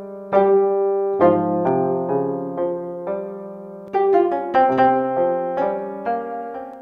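Background piano music: a gentle melody of struck notes over held lower chords.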